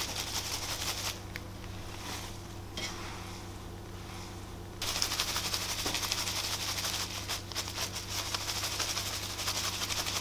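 Plastic colander of fresh rose petals shaken over a metal tray to sift out the yellow seeds: a rapid, dry rattling and rustling. It is softer for a few seconds near the start and picks up again about five seconds in, over a steady low hum.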